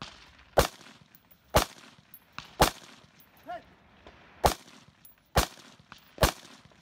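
Semi-automatic AR-15 rifle firing six single shots, each a sharp crack with a brief echo. The shots come about a second apart, with a longer pause after the third.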